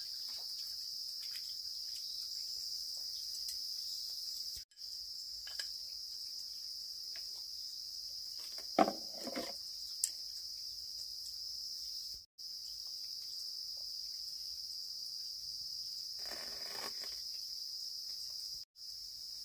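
Steady, high-pitched insect chorus that cuts out for a moment three times, with a sharp knock about nine seconds in.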